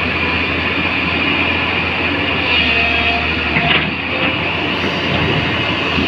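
Diesel engine of a tracked hydraulic excavator (JCB NXT) running steadily under load, together with the tipper truck's engine, as the bucket scrapes soil out of the truck's raised steel body. Brief louder scraping sounds rise out of the steady mechanical noise.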